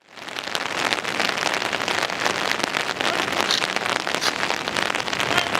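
Steady rain falling, a dense patter of many close drop ticks. It fades in at the start.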